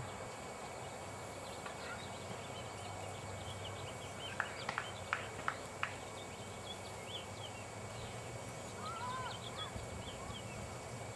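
Small wild birds chirping and twittering in the background over a steady outdoor hiss. A quick run of sharp clicks comes about four and a half seconds in, and a few soft rising-and-falling calls come near the end.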